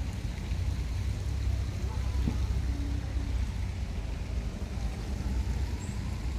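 Steady low outdoor rumble with faint voices in the background.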